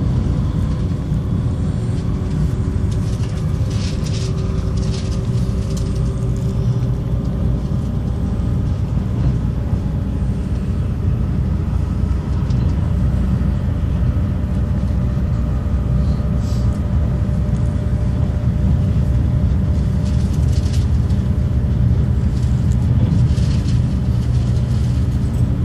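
Passenger train running at speed, heard from inside the carriage: a steady low rumble with faint humming tones over it and brief hissing swells now and then.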